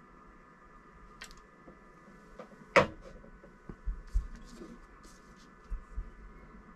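Small handling noises on a workbench as hookup wires and parts are picked up and moved: a light click about a second in, a sharp knock near three seconds, then a few soft bumps on the desk. A steady faint hum runs underneath.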